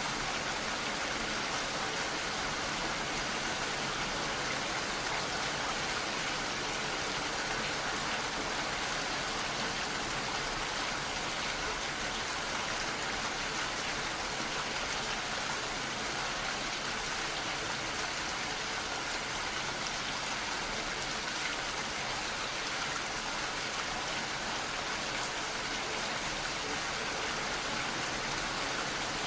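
Steady rain falling, an even hiss of many drops without a break.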